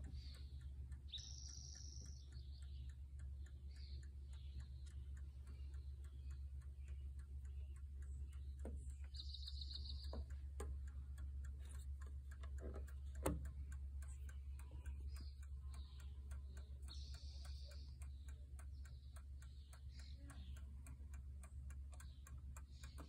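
Gustav Becker 'Mignon' miniature spring-driven pendulum clock movement ticking fast and evenly, several ticks a second. A single sharp knock comes about halfway through.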